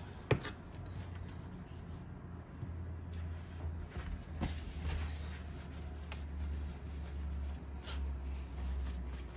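A raw ribeye steak is flipped over onto a plastic cutting board, giving a short sharp knock just after the start. Quiet handling follows, with a faint paper-towel rustle near the end, over a steady low hum.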